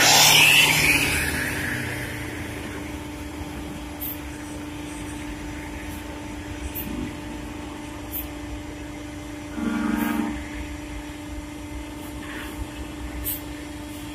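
Vehicle engine noise: a loud rush that fades over the first two seconds, then a steady low hum with a few faint clicks and a short tone about ten seconds in.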